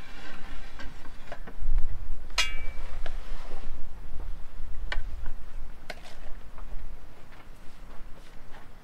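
Metal cutlery clinking against a metal serving pan and plates: scattered light clinks, one ringing out briefly about two and a half seconds in, over a low rumble.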